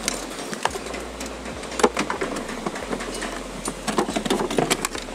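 Scattered sharp clicks and knocks of hand tools working loose the air filter housing in a diesel car's engine bay, bunched about two seconds in and again near the end, over a steady low hum.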